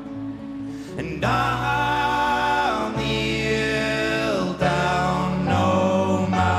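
Live folk-rock band music: sung vocals over an upright double bass and other instruments. It is softer at first and swells fuller about a second in.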